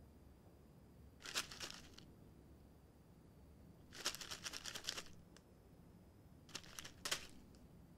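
Plastic lolly bag crinkling in three short bursts, a couple of seconds apart.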